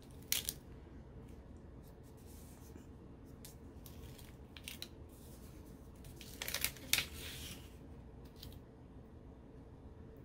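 Paper planner sticker peeled and pressed down onto a planner page: scattered short rustling and crackling sounds of paper, loudest about six to seven seconds in.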